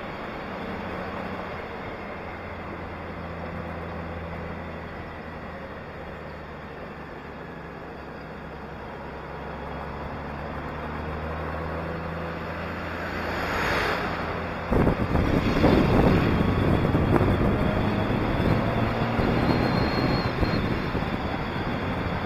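Honda Gold Wing motorcycle engine running steadily at cruising speed. About two-thirds of the way in, a louder rushing, buffeting noise, typical of wind on the microphone, suddenly takes over and covers the engine.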